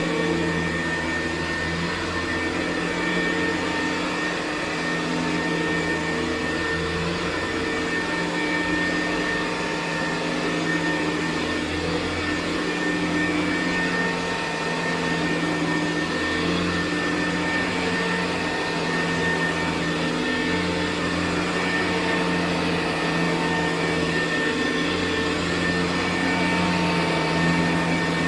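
Hoover U4007 upright vacuum cleaner running on carpet with its four-row brushroll, a steady motor hum with a few fixed tones and slight rises and falls in level.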